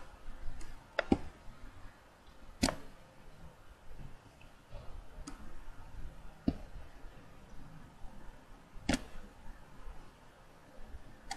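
A few single, irregularly spaced clicks of a computer mouse and keyboard over quiet room tone.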